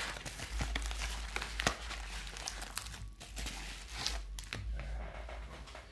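Crinkling and rustling of a padded bubble mailer and clear plastic wrapping being handled as items are pulled out of it, with irregular small crackles and a brief lull about halfway through.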